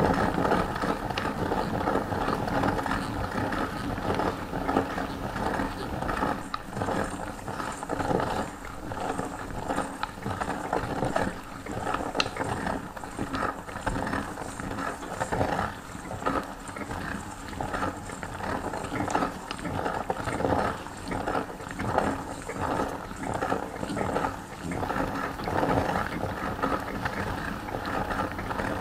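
Hand-cranked metal meat grinder being turned, its auger grinding marshmallows and forcing them through the plate: a steady mechanical grinding with a rhythmic pulse a little faster than once a second.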